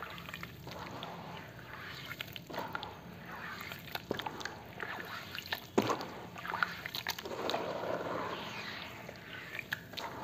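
Hands squeezing and kneading a thick slurry of wet charcoal sand in a plastic basin: wet squelching and sloshing, with many small sharp pops and snaps, the loudest a little past the middle.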